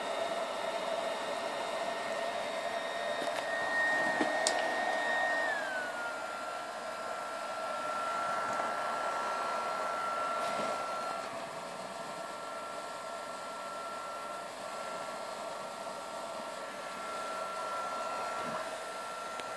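BioLite CampStove's built-in fan blowing air into the fire, a steady whir with a thin whine. There is a click about four seconds in, and the whine then glides down to a lower pitch as the fan slows to a lower speed.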